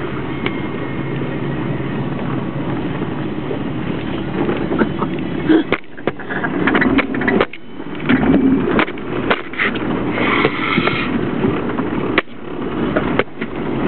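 Jeep Wrangler TJ running and rattling as it drives slowly over a rough dirt trail, heard from inside the cabin. From about halfway in, a run of irregular knocks and clatters as the Jeep jolts over bumps.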